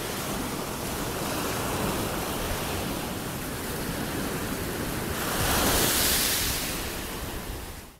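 Ocean surf washing in steadily, with wind on the microphone. A wave surges louder about five to seven seconds in, and then the sound fades out just before the end.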